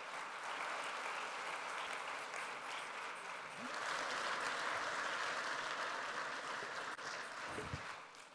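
Conference audience applauding: steady clapping that swells in the middle and dies away near the end, where there is a brief low thump.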